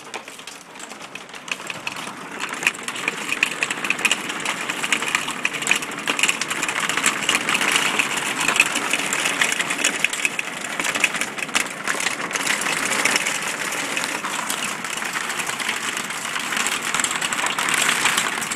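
Hail pelting a vehicle's roof and windows, heard from inside the cab: a dense, continuous rattle of countless small impacts. It builds over the first couple of seconds, then holds steady.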